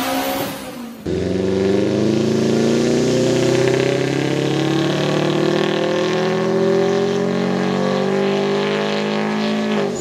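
Turbocharged Subaru WRX flat-four with an FP Blue turbo making a full-throttle pull on a hub dyno: the engine comes in hard about a second in, and its note climbs steadily through the revs for about nine seconds before the driver lets off near the end.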